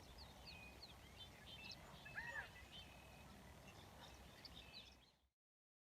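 Faint outdoor birdsong: several birds chirping with short high notes, and one clearer arched call about two seconds in. The sound cuts off to silence about five seconds in.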